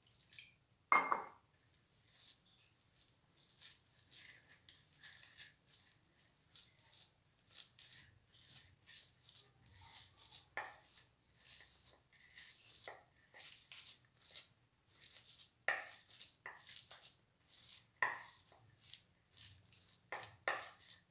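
Hand mixing and kneading moist dough of ground leftover chapati in a steel bowl: a run of soft, quick squishing and scraping sounds, a few a second, with some sharper scrapes. A single metallic clink about a second in.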